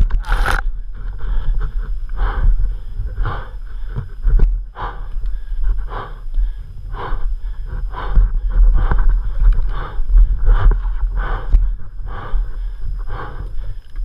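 A rider breathing hard and fast through the mouth, about two loud breaths a second, from exertion. He breathes through the mouth because of a broken nose.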